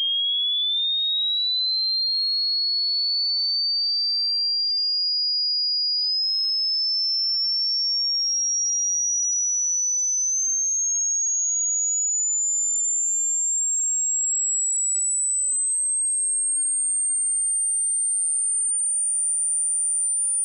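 Electronic hearing-test tone: a single pure sine tone at constant loudness, climbing slowly in small steps from a high whistle to a very thin, piercing pitch. It is a frequency sweep used to find the upper limit of a listener's hearing, which falls with age.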